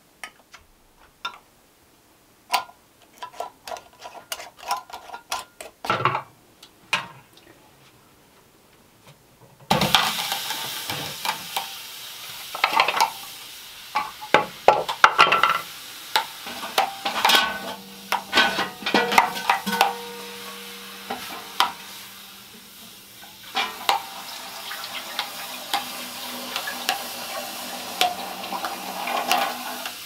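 Metal canning lids clicking as they are set onto glass mason jars one after another. About ten seconds in, a steady hiss starts, with metallic clattering and knocks as an aluminium pressure canner is handled on a wood stove.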